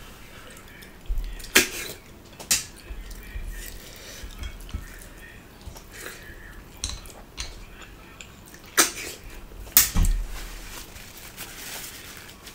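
Close-up eating of pork and river snails by hand: chewing and small mouth noises, with about four sharp slurps spread through. Near the end a runny nose is sniffed and wiped with a tissue.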